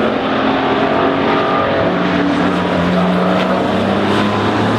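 Historic racing car engine running hard, its pitch holding fairly steady with small shifts up and down.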